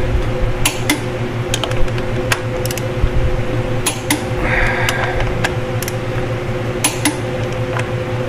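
A socket wrench being worked around the flywheel bolts: a string of irregular, sharp metallic clicks and clinks as the socket goes onto each bolt and the wrench is pulled, over a steady hum.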